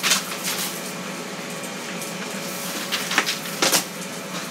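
Kitchen items being handled over a steady low hum: several sharp clicks and knocks, the loudest at the very start and about three and a half seconds in.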